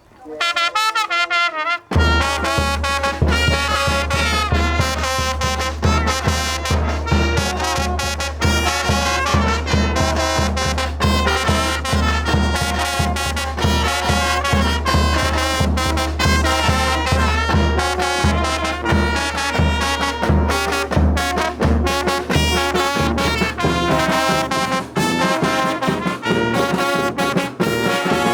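Brass band (banda de viento) playing: a single melodic line for about two seconds, then the full band comes in with trumpets and trombones over a steady bass and a regular beat.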